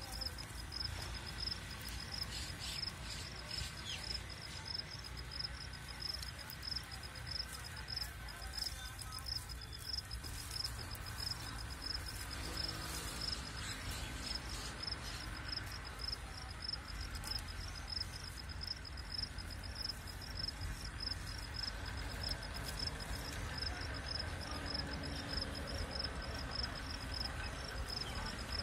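A cricket chirping steadily, a high pulsing tone repeating two or three times a second, with a few faint rustles and clicks of hands working the graft binding.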